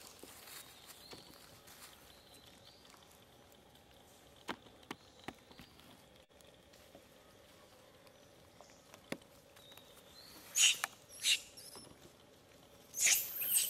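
Long-tailed macaques squealing: two short, high-pitched squeals about ten and eleven seconds in, then a longer, louder bout of squealing near the end. A few faint taps and scuffs come before.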